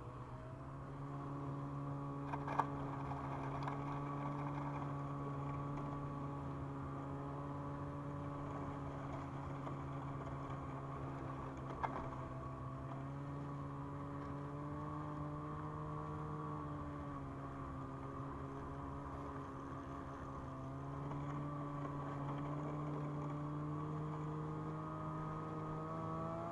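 Ski-Doo MXZ 600 Carb Sport's two-stroke twin engine running steadily on the trail, its pitch dipping and climbing again a few times as the throttle eases and opens. Two sharp clicks cut through, one a few seconds in and one near the middle.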